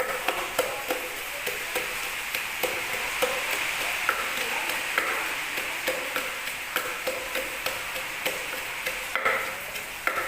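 Spoon clicking against a bowl as grilled pork is tossed and mixed with seasonings, irregular clicks a few per second over a steady hiss.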